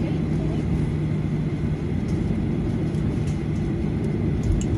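Cabin noise of a Boeing 737 airliner taxiing: a steady low rumble from the engines and the rolling gear, with a few faint clicks and rattles, one cluster shortly before the end.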